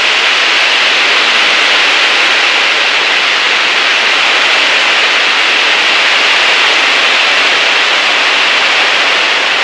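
Rain falling in strong wind: a loud, steady hiss with no pauses or distinct impacts.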